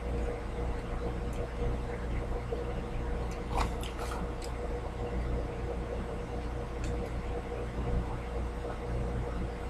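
Steady low electrical hum with a thin whine, broken by a few short crisp crunches about three and a half to four and a half seconds in and again near seven seconds, as a dried plantain chip is bitten and chewed.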